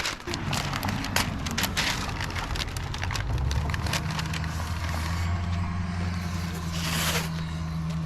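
A steady low engine hum, like a motor vehicle running close by, with sharp crackling and ripping of masking tape and paper over it. A short rush of noise comes about seven seconds in.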